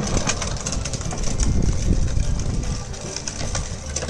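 Hard plastic wheels of a child's ride-on tricycle rumbling and rattling over concrete, loudest a little before halfway and then fading as the trike rolls away.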